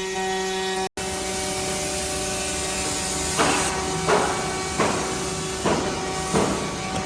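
CNC six-sided drilling machine for woodworking running, with a steady hum made of several held tones. From about halfway, short loud rushes of noise come roughly every 0.7 seconds.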